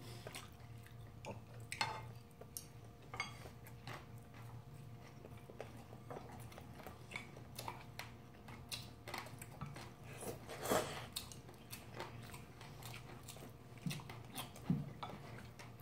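Two people eating noodles and gimbap with chopsticks: soft chewing with scattered small clicks of chopsticks against bowls and a pan, over a faint steady hum.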